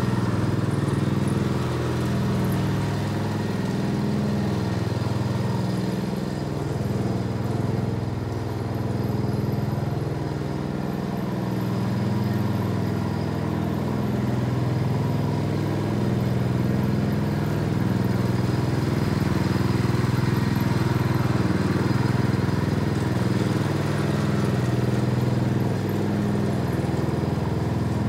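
Small gasoline engine of a walk-behind tiller running steadily as it roughs up the lawn, its pitch shifting slightly with the load.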